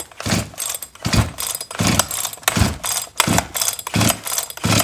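Shindaiwa 490 chainsaw's two-stroke engine being cranked over with the pull-start rope: about seven quick, even pulls, roughly three every two seconds, each a rope whir with a thump as the piston comes up against compression. The engine does not fire, because a compression gauge is screwed into the spark plug hole for a compression test.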